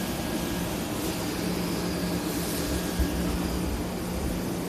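Kato KF-50MX engine pump's small OHV engine running at a steady speed.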